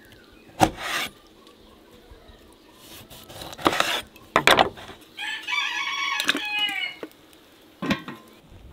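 A rooster crows once in the middle: a drawn-out call of nearly two seconds that falls in pitch at the end. Around it come several sharp knocks and clatters, the first a kitchen knife cutting through a lemon onto a wooden board.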